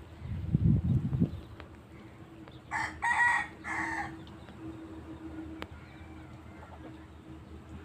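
A rooster crows once, a pitched call in about three quick parts about three seconds in. Before it, starting about half a second in, there is about a second of loud low rumbling.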